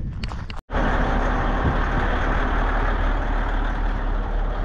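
A few handling clicks, then after a momentary break a heavy diesel engine running steadily at idle, with a deep rumble.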